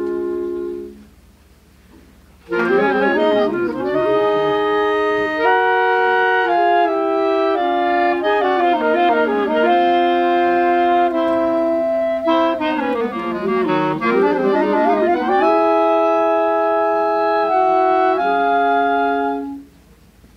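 Clarinet choir of B-flat clarinets and a bass clarinet playing in harmony. A held chord cuts off about a second in; after a short pause the ensemble resumes with a moving passage and ends on a long held chord near the end.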